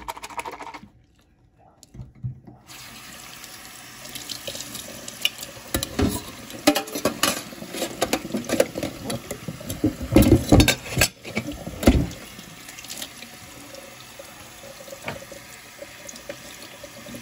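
Water running from a kitchen tap into a sink, starting about three seconds in, with splashing and knocking as a pot of soapy water is scrubbed and handled, busiest in the middle.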